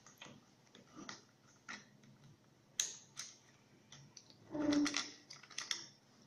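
Small scattered clicks and rustles of fingers working the screen's cable connector loose inside an opened fusion splicer. There is a sharp click a little before halfway and a louder stretch of rustling about two-thirds through.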